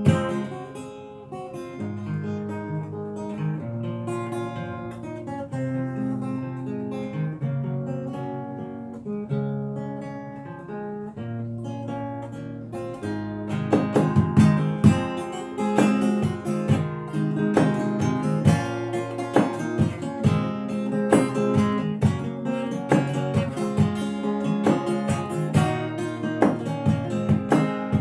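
Solo acoustic guitar played fingerstyle: a picked melody over bass notes, quieter at first, then louder with sharper, strummed strokes from about halfway through.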